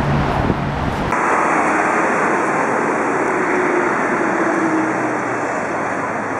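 Steady roar of road traffic, with no distinct events. About a second in it switches abruptly from a low rumble to a brighter, hissier noise.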